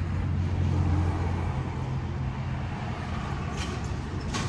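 A motor vehicle on the nearby road, its engine hum swelling about a second in and then easing off. A short sharp click sounds near the end.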